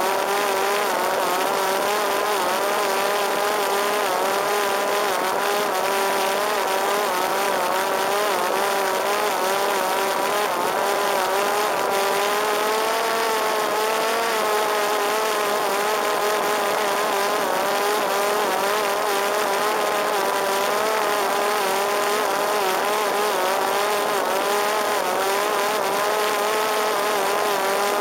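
Parrot Disco fixed-wing drone's electric propeller motor running steadily in flight, a whine whose pitch wavers slightly up and down, over a steady hiss.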